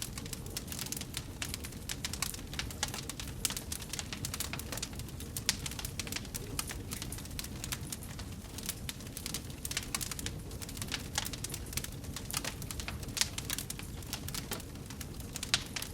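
Wood fire burning in a fireplace, crackling: many quick irregular pops and snaps over a low steady rumble, with a few louder snaps near the end.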